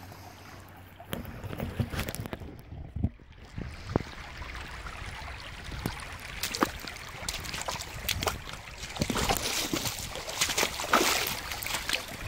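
Creek water running and trickling through a sluice box, getting louder over the second half, with scattered knocks and crunches of footsteps and handling on stones.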